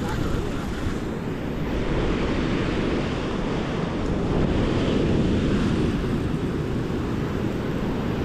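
Surf breaking and washing on the shore, with wind buffeting the microphone; the rush swells a little about halfway through.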